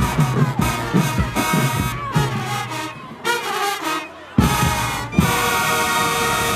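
Marching band playing: brass over a steady beat of drum strokes for about three seconds, then a drop-off, a sharp hit, and a loud sustained brass chord held through the end.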